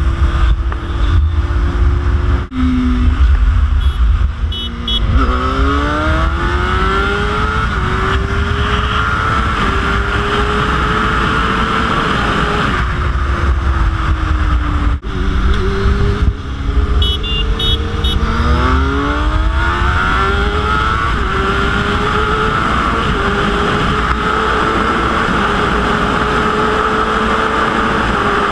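2004 Suzuki GSX-R 750's inline-four engine accelerating hard through the gears twice, its note climbing and dropping back with each upshift, then holding a steady high note at freeway speed. Wind rumble on the bike-mounted microphone underneath.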